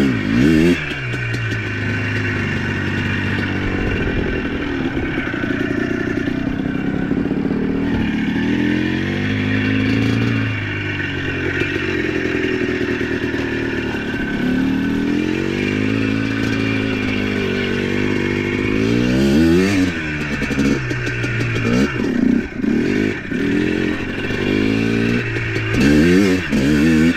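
ATV engine running under throttle, its pitch rising and falling over and over as it revs up and eases off, with a few quick revs near the end.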